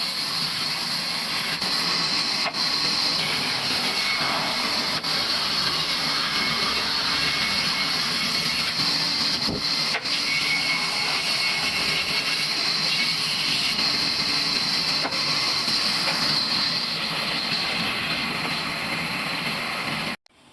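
A sawmill saw running through a wooden beam: a steady, loud hissing noise with a high edge, which stops suddenly near the end.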